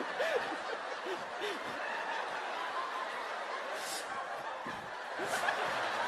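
Audience laughing, a steady spread of laughter with a few single voices standing out, swelling a little near the end.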